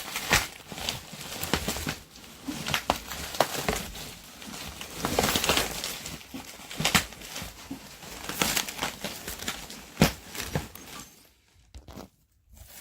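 Packing material being handled and pulled off a boxed computer: irregular crinkling and rustling with scattered knocks, and one sharp knock near the end.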